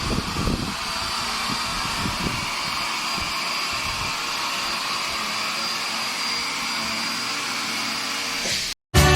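SWDK KC301 handheld dust-mite vacuum cleaner running steadily: a whirring motor with a high, steady whine. There are a few low thumps in the first couple of seconds. The sound cuts off suddenly near the end.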